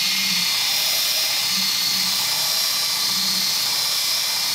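DeWalt cordless drill running steadily at speed, spinning a round nylon brush that scrubs old foam off a headliner board: a steady high whine over a scrubbing hiss. It stops just after the end.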